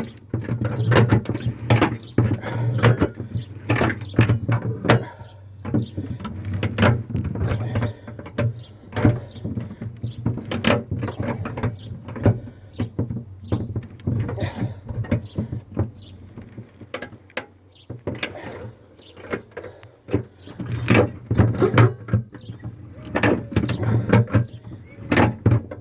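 Ratchet strap being cranked under load: repeated metallic clicks and clunks of the ratchet handle in irregular runs, over a steady low hum.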